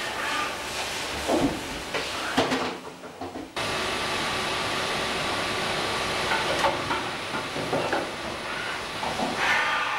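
Riello VFX 300 rotary transfer machine running: a steady hiss of coolant spray and air. Brief louder bursts come in the first few seconds, then the sound drops away and cuts back in suddenly about three and a half seconds in.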